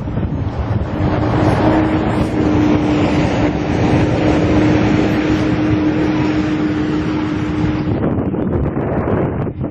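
Jet airliner engines running at taxi power, a steady rushing noise with a constant hum that swells about a second in and falls back near the end, over wind buffeting the microphone.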